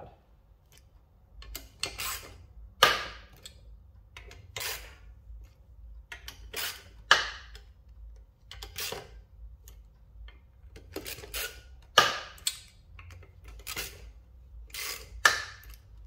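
Metal hand tools clinking and knocking against each other and a scooter engine's crankcase, a sharp strike every second or so with a short ring, while the crankcase bolts are tightened in rotation.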